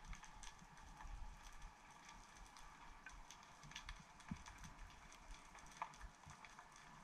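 Faint underwater ambience heard through a camera below the surface: scattered sharp clicks and crackles, irregularly spaced, over a soft low rumble of water.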